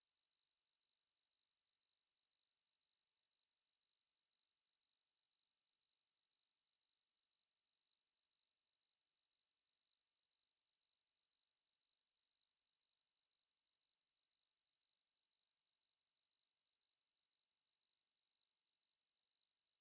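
A single steady 4456 Hz sine-wave test tone, a pure high-pitched whistle held at constant pitch and level.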